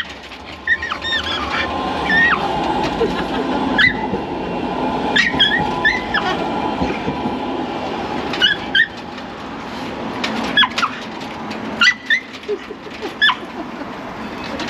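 A Shiba Inu whining in short high-pitched whimpers, about a dozen at irregular intervals, over the steady rumble of passing traffic that swells and fades in the middle.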